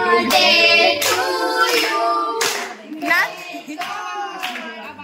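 Several voices, children's among them, singing together, with hands clapping irregularly along.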